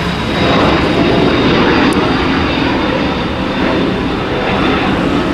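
Lion Air Airbus A330-900neo climbing out just after takeoff, its two Rolls-Royce Trent 7000 turbofans at high thrust. The jet noise is loud and steady, slightly louder from about half a second in, with a faint steady high whine on top.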